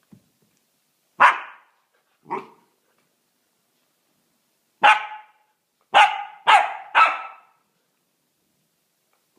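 Belgian Shepherd Tervueren puppy barking: single loud barks about a second and five seconds in with a softer, lower one near two seconds, then three barks in quick succession around six to seven seconds.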